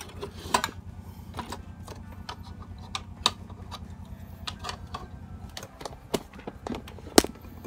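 Scattered light clicks and taps from a TV circuit board and its wiring being handled, with sharper clicks about three seconds in and again near the end, over a steady low hum.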